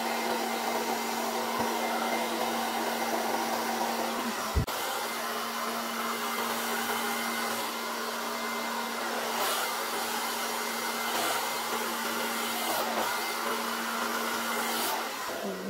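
Handheld hair dryer blowing steadily with an even whoosh and a low electric hum, pushing wet acrylic paint across a board in the bloom technique. A single sharp click sounds about four and a half seconds in, and the hum cuts out near the end.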